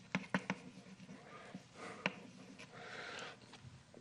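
Chalk on a blackboard as a word is written: a few sharp taps in the first half second, another about two seconds in, and faint scratching strokes in between.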